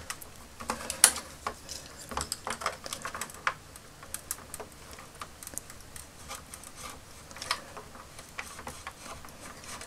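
Faint, irregular little clicks and scratches of hard plastic as a glued-in tube is scored with a scalpel and worked free from a toy jet's plastic hull. The clicks come thickest in the first few seconds, then more sparsely.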